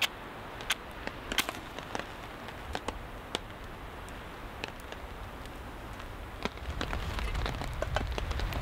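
Scattered drops tapping on a tarp over a steady rain hiss. A low rumble swells over the last two seconds.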